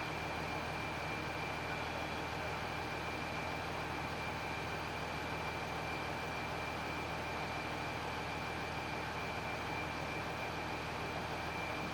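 Heavy engine running steadily at an even speed, with a thin steady high whine over it.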